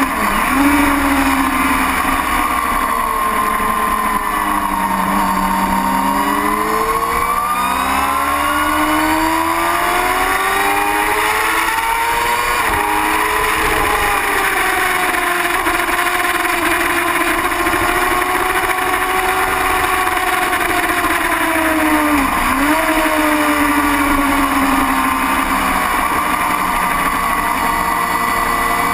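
Racing motorcycle engine heard from an onboard camera, running hard at high revs under a steady rush of wind; its pitch rises and falls slowly with the throttle through the turns and straight, with a quick sharp dip in pitch just after the start and again near the end.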